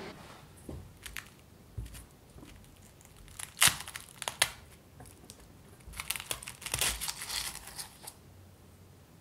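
Stainless steel cake ring being lifted off a baked puff-pastry crust: a few light taps, a sharp click about three and a half seconds in, then a run of crackling and crinkling from the flaky pastry rubbing against the metal as the ring slides up.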